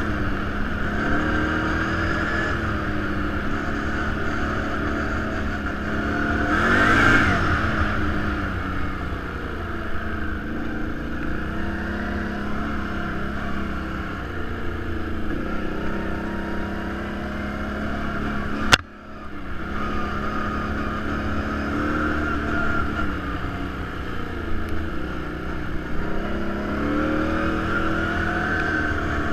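Quad bike (ATV) engine running along a dirt trail, its pitch rising and falling with the throttle as it revs up and eases off. A sharp click and a brief drop in sound come about two-thirds of the way through.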